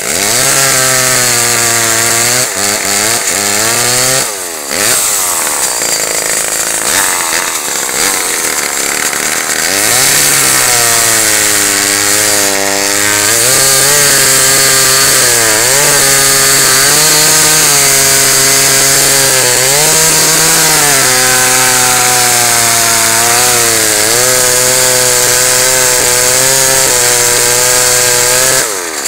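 Homelite two-stroke chainsaw running at high revs while cutting firewood logs, its engine pitch sagging over and over as the chain bites into the wood and rising again as it frees up.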